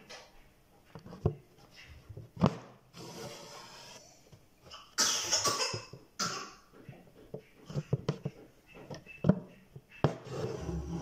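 A person coughs about five seconds in. Around it are a few sharp clicks and soft rustles of a needle and embroidery thread being worked through fabric held in a hoop.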